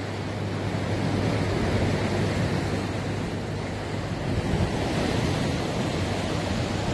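Wind blowing across the microphone over a steady wash of sea waves at a harbour breakwater.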